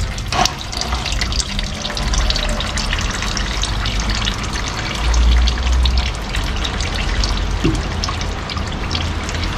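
Old engine oil pouring in a thin stream from the Honda N-BOX's open oil-pan drain hole and splashing into a catch pan, with small drips and clicks. A low rumble runs underneath, swelling about five seconds in.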